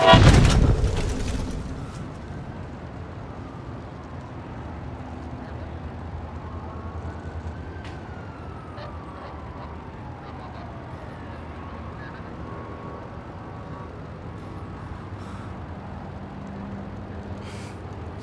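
A sudden loud whoosh, the super-speed sound effect of a speedster arriving, dies away over about two seconds. A steady low traffic rumble follows, with a faint distant siren rising and then falling in the middle.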